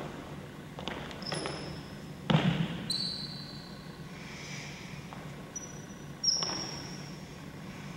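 Sharp thuds from a martial artist's movements in a crane-style kung fu form. The loudest comes about two seconds in and another about six seconds in, with fainter ones between, over a steady low hum.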